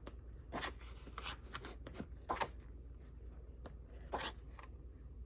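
Sheets of scrapbook paper being handled and shuffled, with several short, separate rustles over a low, steady hum.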